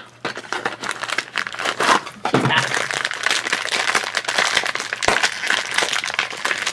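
A blue blind-bag wrapper crinkling and crackling as hands work it open to get at the toy figure inside.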